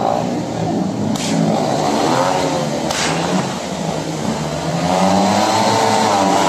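Several 500 cc single-cylinder speedway bike engines revving at the start gate, their pitch rising and falling as the throttles are blipped. Two sharp cracks cut through, about one and three seconds in.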